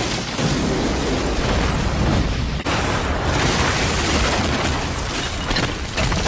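Anime explosion sound effect for a fire-release jutsu blast (Katon: Zukokku): a heavy, continuous explosion rumble with deep low end that carries on throughout, easing slightly toward the end.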